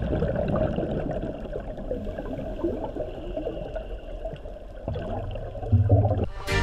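Underwater bubbling and gurgling, heard muffled below the surface as scuba divers' exhaust bubbles rise. A steady low hum joins in about five seconds in.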